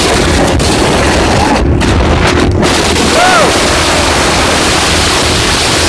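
Loud, steady wind rush buffeting the microphone of a phone carried on a motorcycle at highway speed, covering the bike's own engine.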